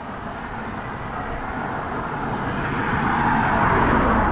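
A car passing on the road, its tyre noise swelling over a few seconds to a peak near the end and then fading, over the steady rush of the flooded river.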